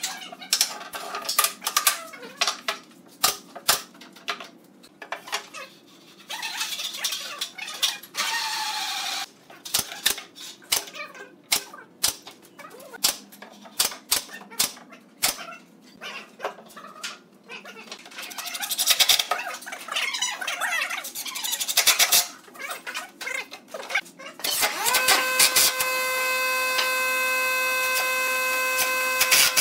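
Pneumatic nail gun firing nails into pine boards: a long run of sharp shots, some in quick succession. Near the end, a cordless Makita impact driver spins up with a steady whine as it drives a screw into the box.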